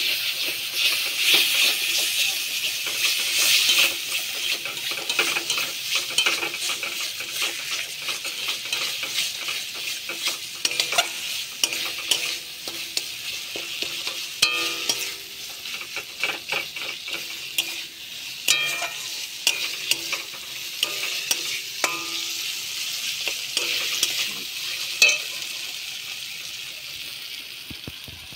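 Tomato and spice paste sizzling as it fries in a metal kadai, stirred and scraped with a metal spatula: a steady hiss with frequent clicks and short metallic rings of the spatula on the pan. The sizzle fades near the end.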